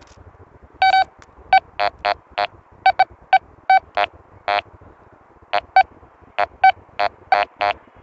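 Metal detector giving a quick series of short, high electronic beeps, about eighteen in all, starting about a second in, as the coil is swept back and forth over a freshly dug hole. The beeps signal metal still in the hole, a small scrap of rusted sheet metal.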